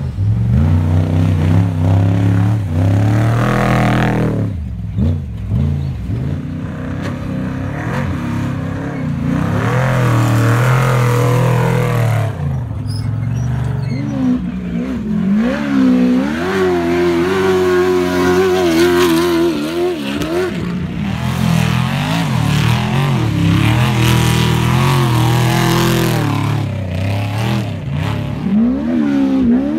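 Engines of off-road desert race vehicles revving hard as several pass along a dirt course one after another, their pitch rising and falling with throttle and gear changes.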